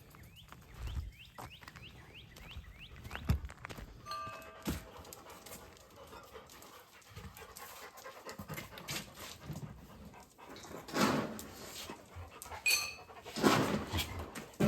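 A dog panting in quick breathy bursts, loudest in the last few seconds.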